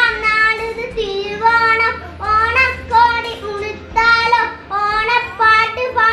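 A young boy singing a Malayalam Onam song solo, holding each note for about a second between short breaths.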